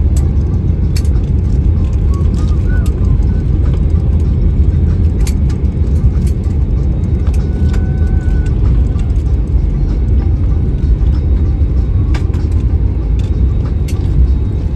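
Airbus A320 cabin noise during the landing rollout: a loud, steady low rumble from the engines and the wheels on the runway as the airliner slows towards a taxiway exit, with occasional sharp clicks.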